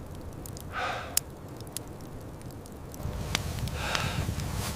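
A person's breathing, two soft breaths about a second and about four seconds in, over scattered sharp clicks. A low rumble grows about three seconds in.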